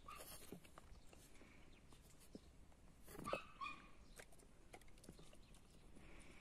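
Quiet scuffs and light ticks of a dog moving on dry dirt, with a brief dog vocalisation about three seconds in, the loudest sound.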